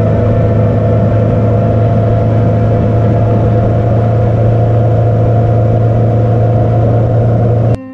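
Yamaha Tracer 900GT's inline three-cylinder engine running at a steady cruising speed, with wind noise over it; it cuts off suddenly right at the end.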